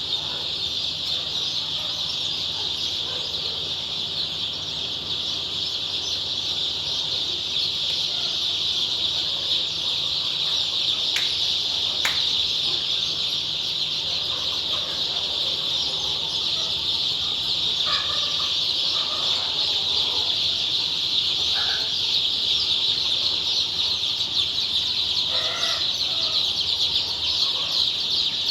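A large flock of young Sonali chicks peeping continuously as one dense, high chorus, with a few lower clucking calls about two-thirds of the way through and two sharp clicks near the middle.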